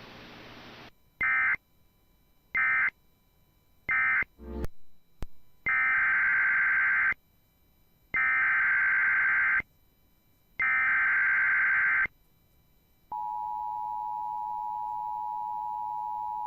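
Emergency Alert System data tones: three short warbling data bursts that close the previous message, a brief crackle, then three longer data bursts (the SAME header of the next alert), followed after a pause by the steady two-tone EAS attention signal.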